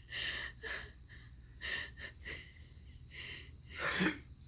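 Laboured breathing from someone short of breath: a string of about six short gasps and wheezes, each lasting under half a second.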